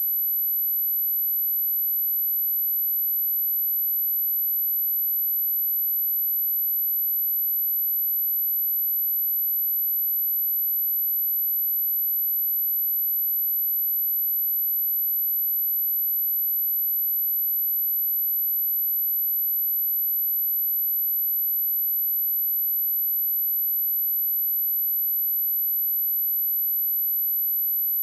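A steady pure sine-wave test tone at 11935 Hz, a single very high-pitched whine held at a constant level, played to test a speaker or shake water and dust out of it.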